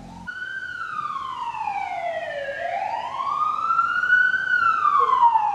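Police car siren wailing: a slow sweep that falls in pitch for about two seconds, rises back up, then begins to fall again.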